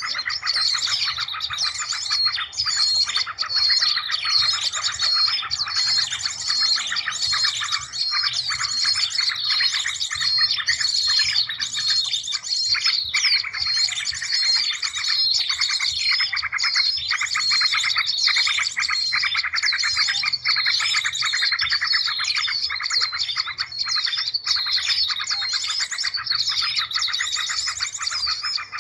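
Bird-lure call recording: a dense chorus of many small birds chirping and twittering rapidly without a break, with one chirp phrase repeating over and over.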